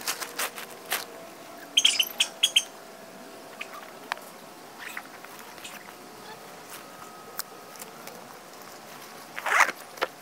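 Tent fabric, tarp and gear being handled: scattered rustles and clicks, a quick run of four short high chirps about two seconds in, and a brief louder rustle near the end.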